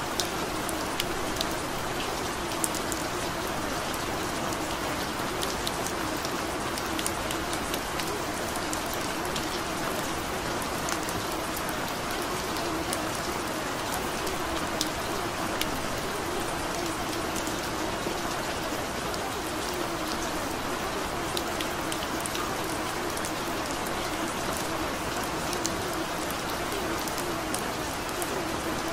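Steady rain falling, an even hiss with many scattered sharp drop ticks, unchanging throughout.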